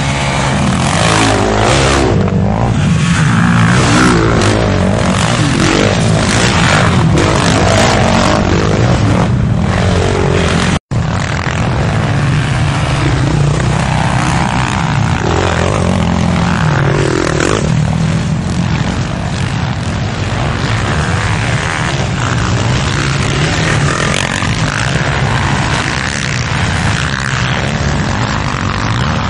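Racing quad bike engines at high revs, the pitch rising and falling as the riders accelerate, jump and corner. The sound cuts out for a split second about eleven seconds in.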